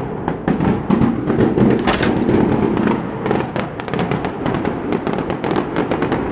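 Fireworks going off in a dense, irregular string of rapid bangs and crackles.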